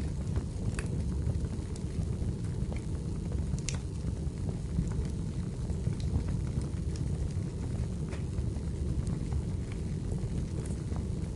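Wood fire burning in a fireplace: a steady low rumble with sharp crackles and pops every couple of seconds.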